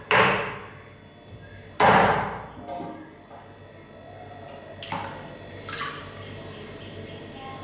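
Meat cleaver chopping boiled chicken feet on a wooden chopping board: two heavy chops about two seconds apart, each with a short ringing decay. Later come two fainter knocks and water sounds as the pieces are handled in a sink of water.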